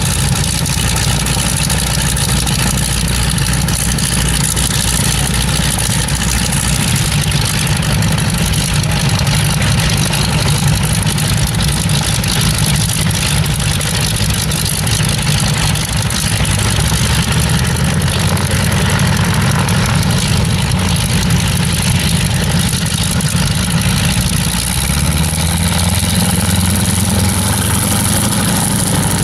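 Radial piston aircraft engines of a North American T-6 trainer and a Gloster Gauntlet biplane running at low power on the ground, idling and taxiing as a steady low drone. Near the end the engine note steps up.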